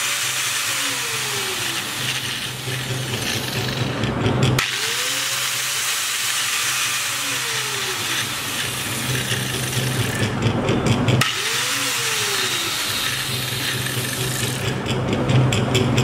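Electric angle grinder with a cutting disc running steadily at speed, a continuous motor whine under a dense high hiss, with abrupt cuts about 4.5 and 11 seconds in.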